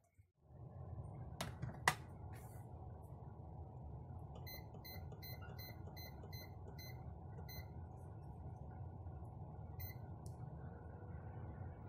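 Two clicks, then the control panel of a Panasonic SR-JHS18 induction-heating rice cooker beeping. A quick, evenly spaced run of about nine short beeps comes as the Menu button is pressed repeatedly to reach the cake setting, then a single beep near the end as Start is pressed. A steady low hum runs underneath.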